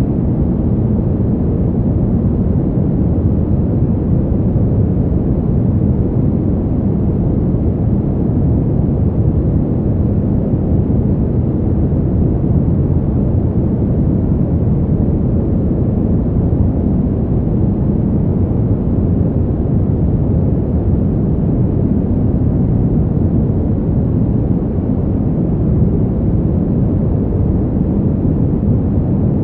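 Steady, deep brown noise: an even, unchanging rumble-like hiss weighted heavily toward the low end, with little above the midrange.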